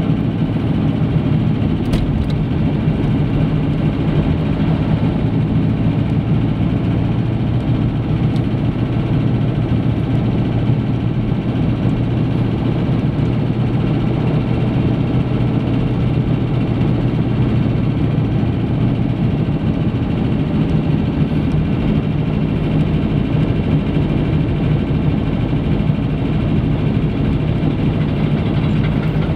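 A car driving at a steady speed, heard from inside the cabin: a steady low engine hum under even road and tyre noise.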